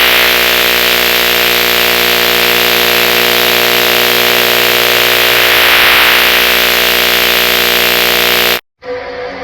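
A heavily distorted variation of an Emergency Alert System-style alert tone: a loud, steady chord of several held tones buried in thick hiss. It cuts off abruptly near the end, and after a brief gap a quieter alert tone starts.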